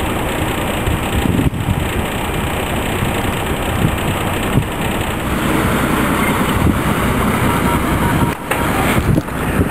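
A boat's motor running steadily, with a short drop-out about eight seconds in.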